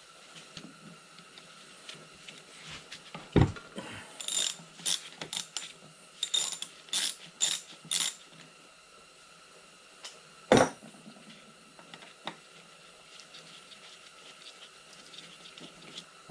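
Ratchet wrench clicking in a run of short strokes for a few seconds as socket head cap screws are backed out of the gear housing. A sharp thud comes before the clicking and another later.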